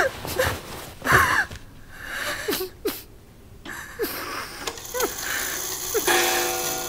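A woman sobbing, with gasping breaths and short whimpering catches of the voice. Soft music comes in near the end.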